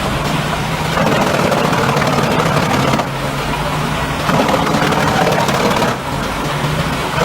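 Large forestry wood chipper running: a steady engine note under a loud, rough chipping noise, which shifts abruptly in level a few times.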